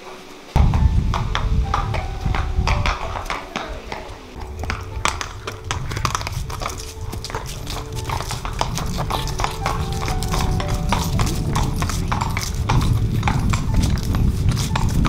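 Horses' hooves clip-clopping on paving as several horses walk. A loud low rumble sets in abruptly about half a second in and runs under the hoofbeats.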